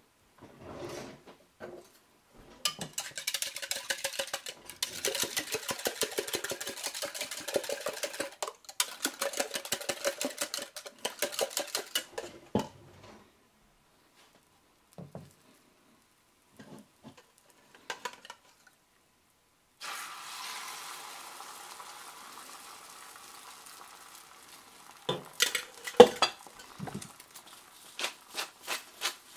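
Eggs being beaten rapidly in a plastic cup for about ten seconds, then a few light knocks. Near the twenty-second mark beaten egg hits a hot cast iron skillet and starts to sizzle steadily, with a utensil clicking sharply against the pan near the end.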